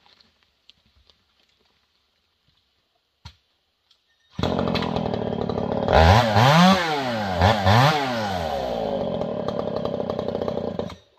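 Gas chainsaw comes in suddenly about four seconds in and runs loudly, its revs rising and falling twice, then cuts off just before the end.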